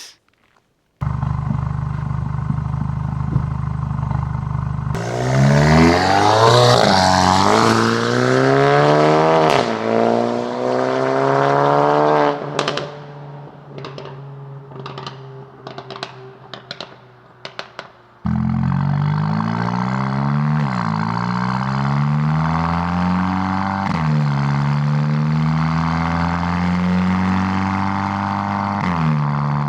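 Volkswagen MK8 GTI's turbocharged four-cylinder through a Milltek cat-back exhaust and downpipe, pulling hard through the gears, its pitch climbing and dropping at each upshift. It then eases off with a string of sharp exhaust pops, and after an abrupt cut pulls hard through several more upshifts.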